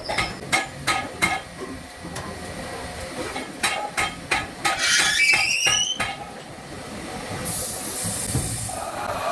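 Hammer blows on metal in a fan workshop: a run of sharp knocks at about three a second, then after a pause a second run with a high metallic ring. Near the end comes a short hiss.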